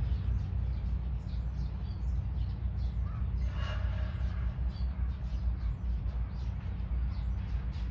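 Wild birds calling: short high chirps scattered throughout, and one louder, harsher call about three and a half seconds in, over a steady low rumble.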